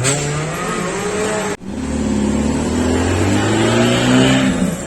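Off-road 4×4 jeep engine revving hard under acceleration, its pitch climbing. The sound breaks off sharply for an instant about one and a half seconds in, then the engine is heard again, rising steadily.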